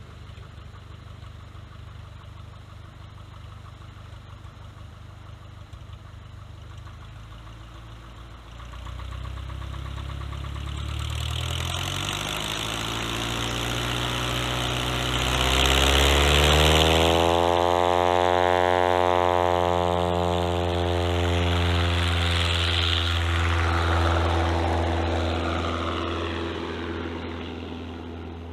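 Aviat Husky A1-B's Lycoming O-360 four-cylinder engine and propeller running at low power, then opening up to full takeoff power from about a third of the way in, the pitch climbing as the aeroplane accelerates. It is loudest a little past halfway, holds steady, and fades near the end as the aircraft climbs away.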